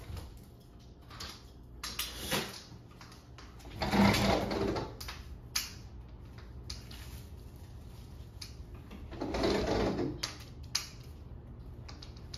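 Someone moving about a room handling things: scattered light clicks and knocks, with two louder noisy scrapes, each about a second long, about four seconds in and near ten seconds.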